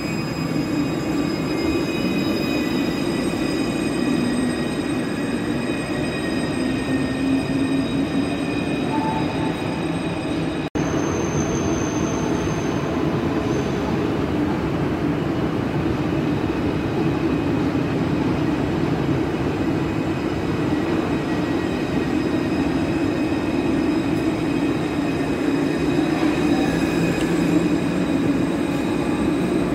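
Alstom Citadis 302 low-floor trams running past the platform: a steady rumble of wheels on rail, overlaid with high whining tones, some of them gliding in pitch. The sound breaks off sharply about ten seconds in and carries on with another tram.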